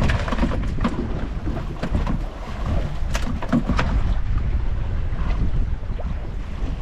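Sea wind buffeting the microphone aboard a small fishing boat, a steady low rumble with waves, broken by a few short knocks and clatters.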